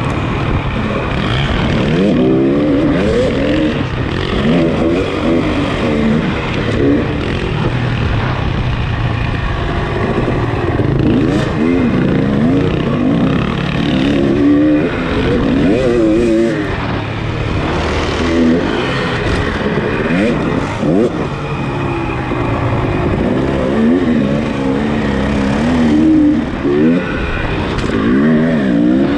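Off-road racing motorcycle engine running hard, its pitch rising and falling over and over as the throttle is opened and closed.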